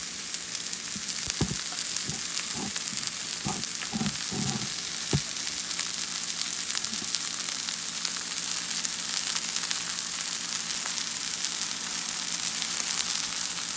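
Sliced shiitake mushrooms frying in rendered dry-aged beef fat in a stainless-steel skillet, a steady sizzle.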